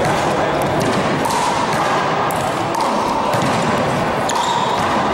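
Rubber handball rally: repeated sharp slaps of the ball struck by hand, hitting the wall and bouncing on the gym floor, over a steady background noise of the hall.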